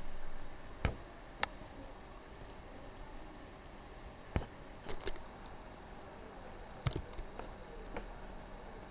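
Scattered computer mouse clicks and a few keyboard keystrokes, about nine sharp clicks spread unevenly over a faint steady hiss. A brief low noise comes right at the start.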